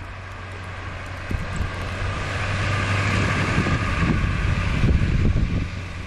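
Snowstorm wind and a vehicle on the snowy road: noise building over several seconds into loud, ragged gusts buffeting the microphone near the end, over a steady low hum.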